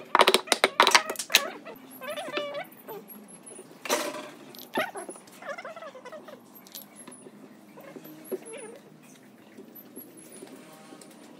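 Quick clicks from a steel pipe clamp being tightened in the first second, then a single knock about four seconds in. An animal calls in the background twice, over repeated faint high chirps.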